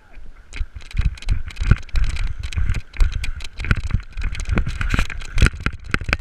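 A paintball player running hard over soft forest ground, close to the microphone: irregular heavy footfalls, about two to three a second, with his gear knocking and rattling at each stride.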